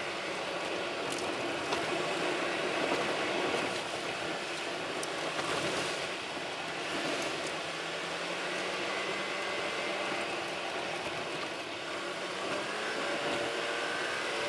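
Car driving along a road: steady tyre and engine noise, with the engine note rising gradually over the last few seconds.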